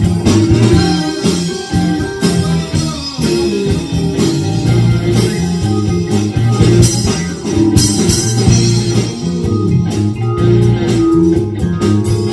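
Live band music: a red semi-hollow-body electric guitar playing lead over electric bass and a drum kit.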